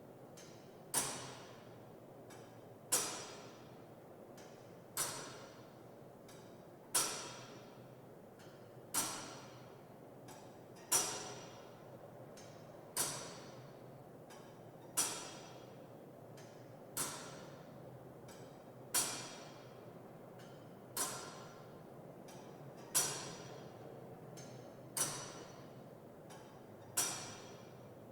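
Big Ben's clock mechanism ticking, one loud tick every two seconds, each ringing briefly as it dies away, over a low steady hum.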